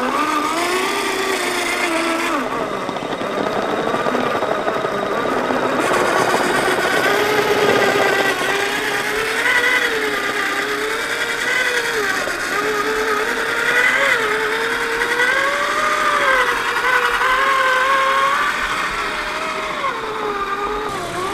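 Electric motor and gear whine of a 1/10 scale TRX-4 RC crawler truck creeping over rocks. The pitch rises and falls as the throttle is eased on and off.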